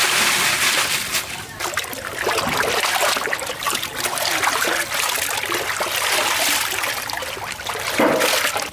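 Water splashing and sloshing in a large aluminium pot. Cut vegetable pieces are tipped into the water, then churned and washed by hand, with a louder splash near the end.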